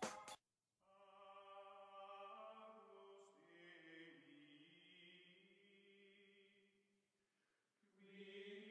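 Faint choral music: several voices chanting long held notes, shifting pitch about midway, fading out about two-thirds of the way through, with a new phrase starting near the end.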